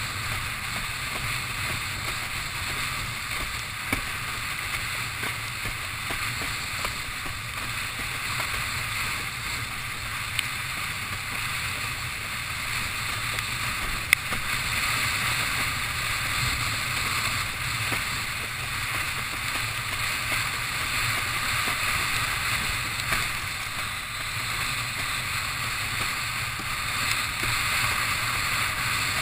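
Windsurf board sailing over choppy water: a steady rush of water and wind, broken by a few short sharp knocks, the loudest about fourteen seconds in.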